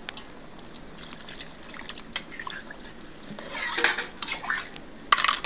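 Metal spatula stirring a watery pumpkin curry in a black iron wok, the gravy sloshing and the spatula scraping the pan. The stirs are louder about three and a half seconds in and again near the end.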